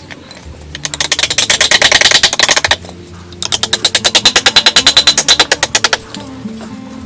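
Two bursts of rapid, even tapping, about fifteen sharp strikes a second, each lasting two to three seconds with a short pause between, over soft background music.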